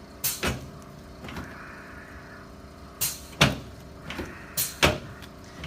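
Chiropractic adjustment thrusts on the shoulders, clavicles and front ribs: a series of short, sharp thumps and cracks, mostly in quick pairs, as the patient's body and the treatment table take the thrusts.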